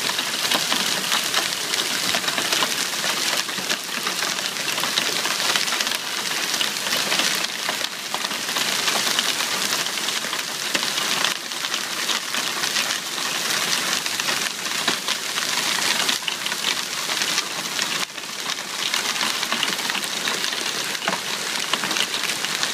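Hailstorm: small hail and heavy rain pelting a lawn, dead leaves and a concrete walkway, a dense, steady patter of countless small ticks.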